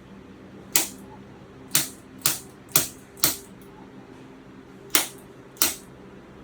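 About seven sharp clicks at irregular intervals over roughly five seconds, made during a chiropractic adjustment.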